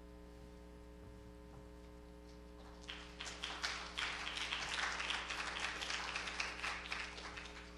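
Audience applauding in a large hall, starting about three seconds in after a stretch of quiet room tone with a steady mains hum.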